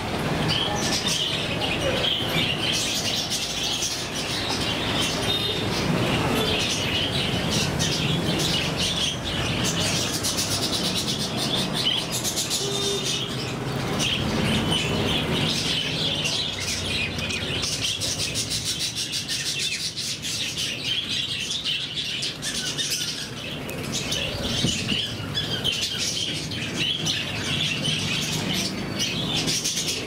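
A large flock of budgerigars chattering: a dense, unbroken mass of high chirps and warbles, over a steady low rumble.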